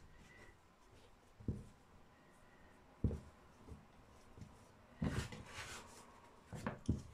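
Hands kneading and shaping a piece of soft lavash dough on a silicone pastry mat: a few dull thuds as the dough is pressed and turned on the mat, and a short rubbing, rustling sound about five seconds in.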